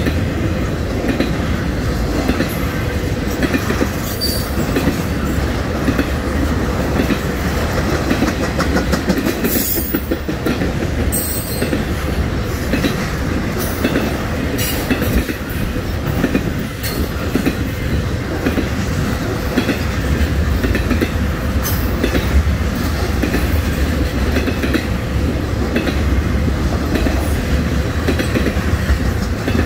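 Intermodal freight train rolling past, its trailer- and container-carrying flat and well cars giving a steady rumble and clickety-clack of wheels over the rail joints. A few brief, sharp, high-pitched squeaks cut through.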